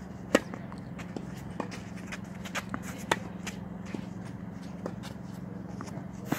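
A tennis ball is struck hard on a serve about a third of a second in. Lighter ball hits and bounces follow, with shoes scuffing and shuffling on a clay court, over a steady low hum.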